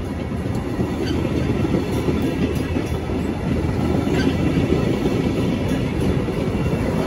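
Siemens Venture passenger coaches rolling past at speed close by: a steady rumble of wheels on the rails that grows slightly louder.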